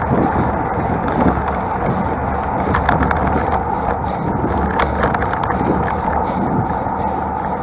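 A road bike climbing, heard from a camera on the bike or rider: steady road and wind noise with small clicks and rattles, several of them about three seconds in and again near five seconds.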